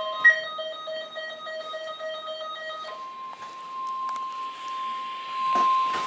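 A weather radio receiver sounds an emergency alert. The steady 1050 Hz NOAA Weather Radio warning alarm tone carries through, and a pulsing, multi-tone alarm over it cuts off about halfway in. A sharp click comes just after the start, and handling noise comes near the end.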